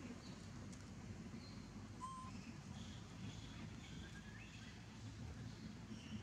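Faint outdoor ambience: a steady low rumble with a few short, faint high chirps scattered through it.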